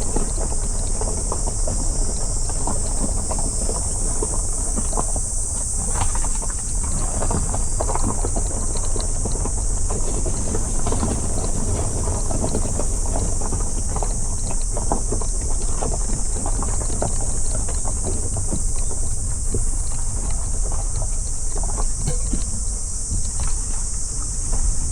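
Car driving along a road: steady low rumble of tyres and engine with wind noise, many small knocks and rattles, and a steady high hiss over it.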